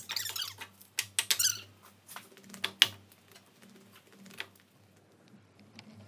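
Split firewood being loaded and stacked into a wood furnace's steel firebox: pieces of wood knock and scrape against each other and the firebox. There are several knocks in the first three seconds, the loudest about three seconds in, then only fainter handling.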